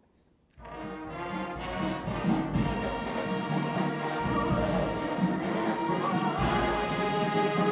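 Marching band brass and woodwinds (sousaphones, trumpets, saxophones) come in together about half a second in and play loud full chords over a heavy bass line.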